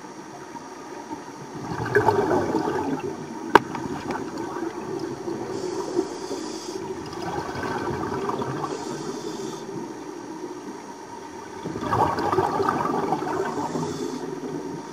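Scuba regulator breathing heard underwater: a thin hiss on each inhale and a gurgling rush of exhaled bubbles, about three breaths in all. A single sharp click about three and a half seconds in.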